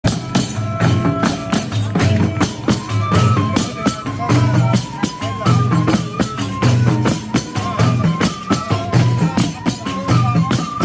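Traditional wedding music: a fast, steady beat of hand percussion with a pulsing low drum under a melody that steps between a few notes.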